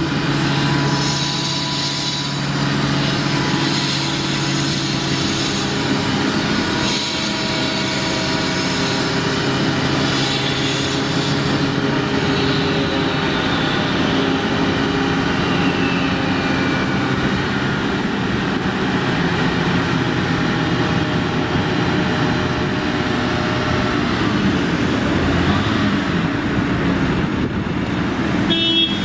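Diesel engines of asphalt paving machinery running steadily, a dense engine hum with several steady tones.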